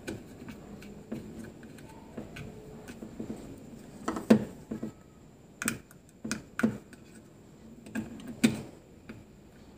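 Small plastic wire connectors and the plastic housing of a battery aerator being handled, giving scattered sharp clicks and taps, a handful of them in the second half.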